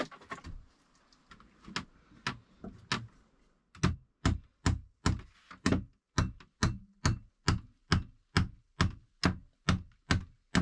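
Hammering on wood: a few scattered knocks, then from about four seconds in a steady run of sharp strikes, about two a second.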